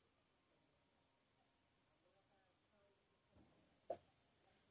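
Near silence: room tone with a faint, high-pitched pulsing, several pulses a second, and a short click about four seconds in.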